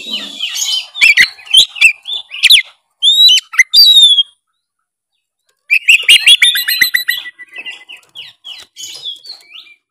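Oriental magpie-robin in full song: loud, rapid phrases of varied whistles, slurred notes and clicking chatter in bursts, with a pause of about a second and a half near the middle.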